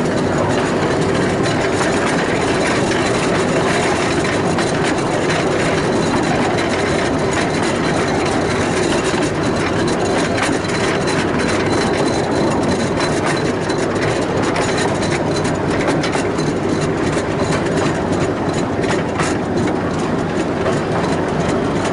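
Small narrow-gauge zoo train running steadily along its track: a continuous rumble of wheels on rail with many small rapid clicks.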